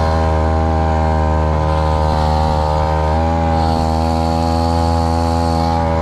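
Grass-cutter engine running steadily at speed on a homemade shrimp-tail longtail drive, pushing the boat. It turns a three-blade propeller, which gives more speed but loads the engine more. The engine note shifts slightly about three seconds in.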